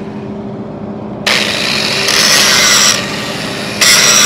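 Angle grinder grinding down the 6010 stringer (root) bead on a steel pipe weld. The wheel bites into the metal about a second in, eases off about three seconds in, and bites again near the end.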